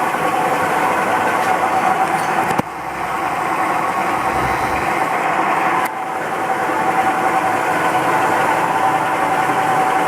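Lagun FTV-2S vertical milling machine running with a steady mechanical whine. Twice, about two and a half and six seconds in, there is a sharp click; the sound drops after each and then builds back up.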